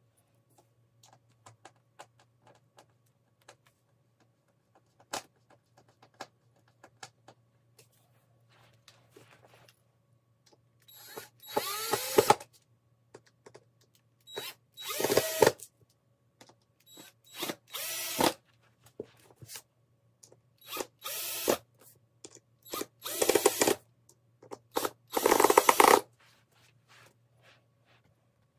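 Cordless drill driving screws into a particle-board panel in six short runs of about a second each, all in the second half. Before the first run there are only light clicks and taps of the hardware being handled.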